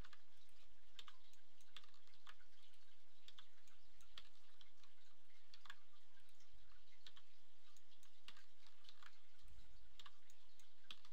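Computer mouse clicks and keyboard key presses, irregular and a few a second, over a steady hiss.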